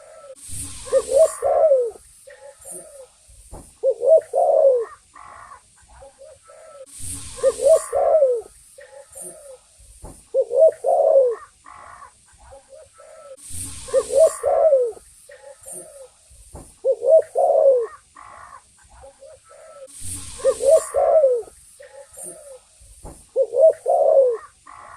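Spotted dove (tekukur) cooing: groups of low, pitched coos repeated over and over in the same pattern about every six and a half seconds, as in a looped lure call. Each repeat opens with a short rush of noise, over a faint steady high hiss.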